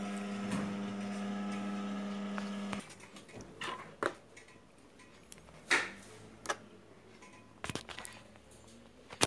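An industrial flatlock sewing machine's motor hums steadily and stops about three seconds in. Then come scattered light knocks and clicks as the fabric and machine are handled, with one sharper knock near the end.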